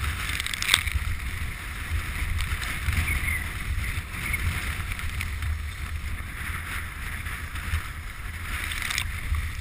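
Wooden krňačka sled sliding fast down a packed-snow track, its runners hissing and scraping over the snow. Wind rumbles on the microphone, with a few sharp knocks, the loudest about a second in and another near the end.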